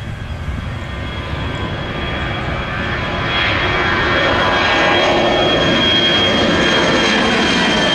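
Twin-engine jet airliner climbing out after takeoff and passing overhead. The engine noise is a steady high whine over a broad rumble, growing steadily louder and levelling off about halfway through.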